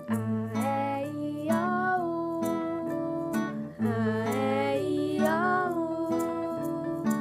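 Music: a guitar-backed children's tune, with steady low chords changing about every half second and a melody line that glides up and down above them.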